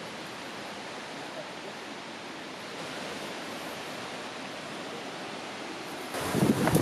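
Steady, even rush of a distant mountain river. About six seconds in it cuts suddenly to much louder gusts of wind buffeting the microphone.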